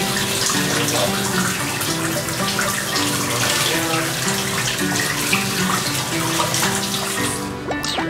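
Water running from a sink faucet and splashing over a kitten held in the stream as it is washed, with soft background music; the running water stops near the end.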